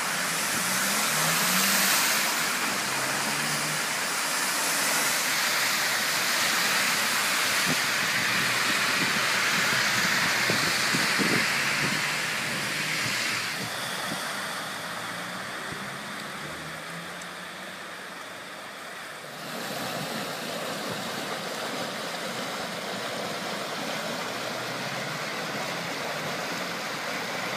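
Cars driving through shallow floodwater, their tyres splashing and sending up spray, over the steady rush of flowing floodwater.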